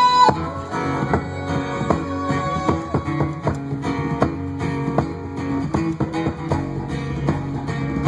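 A band playing an instrumental passage of a folk-rock song: picked guitar notes over a bass line. A held wind-instrument note breaks off right at the start.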